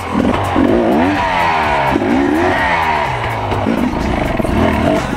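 Enduro dirt bike engine revving up and falling back two or three times as the throttle is worked at low speed.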